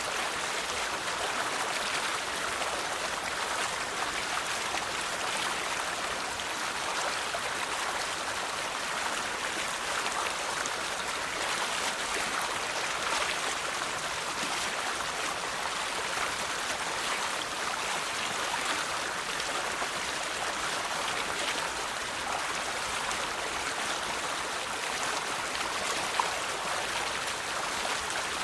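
River water flowing and splashing, a steady rushing babble with its energy in the upper-middle range and no pauses.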